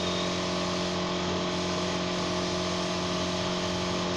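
Air-powered paint spray gun hissing steadily as it sprays, over the even hum of the compressor motor feeding it.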